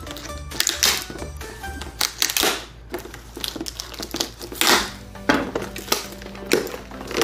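Background music with a steady bass line, overlaid by irregular crinkling, rustling and clacking of plastic packaging and a plastic container being handled while a snake shipment is unpacked.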